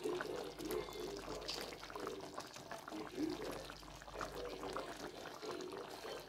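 Thick creamy sauce bubbling and popping as it simmers in a pan, with a spoon stirring through it.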